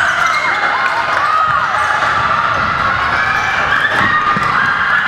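Basketball game play on a gym court: a ball bouncing and many short sneaker squeaks on the floor, with voices in the background.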